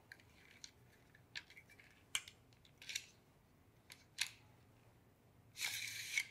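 Carbon-fibre tripod leg and its plastic leg-lock cam being handled: a scattering of light clicks and short scrapes, then a longer scrape about five and a half seconds in.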